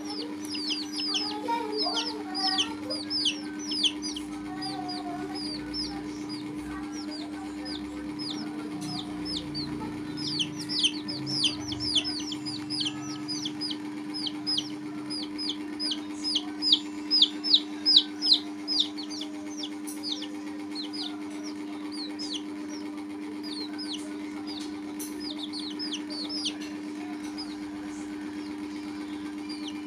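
Baby chicks peeping: rapid runs of short, high, falling peeps with brief pauses between runs, loudest a little past the middle and dying away near the end. A steady low hum runs underneath.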